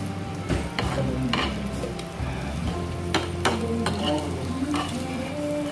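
Meat sizzling in a pan on a portable tabletop gas burner, with several sharp clicks of utensils against the pan.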